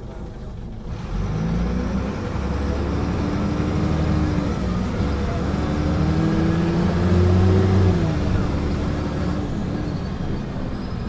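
Diesel engine of an Optare Vecta single-deck bus, heard from inside the saloon as the bus pulls away: the engine note comes up about a second in and climbs steadily as the bus accelerates. Near eight seconds the note drops back sharply, then eases off.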